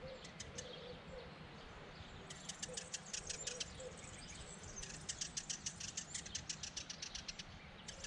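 Morning chorus of many songbirds: rapid runs of high, thin chirps starting about two seconds in, with fainter calls underneath.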